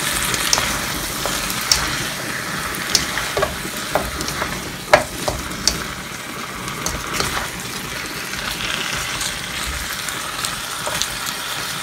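Pork rib pieces with onion and butter sizzling in a hot wok while a wooden spatula stirs them, with scattered knocks and scrapes of the spatula against the pan; one louder knock about five seconds in.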